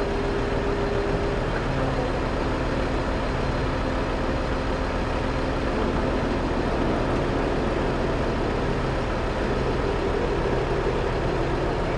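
A heavy vehicle's engine running steadily, a constant low hum with no change in speed.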